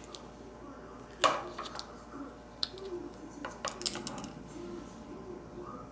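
Sharp little plastic clicks and rustles from handling a small pink dog toothbrush and taking off the clear plastic cap over its head. The loudest click comes a little over a second in, with a quick cluster of clicks near the middle.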